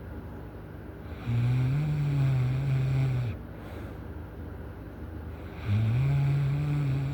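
A person snoring loudly: two long, low-pitched snores of about two seconds each, the first starting about a second in and the second near the end.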